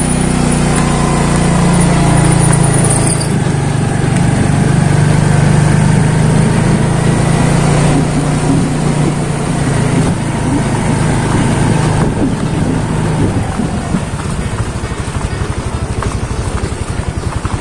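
Motorcycle engine running steadily while riding. About thirteen seconds in, its steady note gives way to a rougher, uneven rumble.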